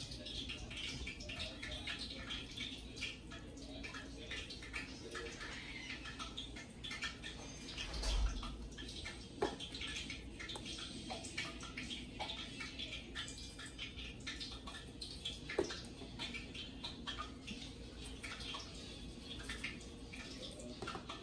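Seasoning shaken from a shaker onto raw pork chops in a foil pan: a light, steady pattering and rattling of grains. A low thump about eight seconds in and a few sharper clicks come from handling the pan and shaker.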